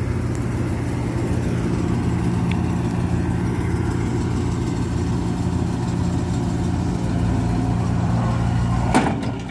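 Excavator's diesel engine running steadily at a constant speed, rising slightly near the end. About nine seconds in there is a sharp click, and the engine sound drops off abruptly.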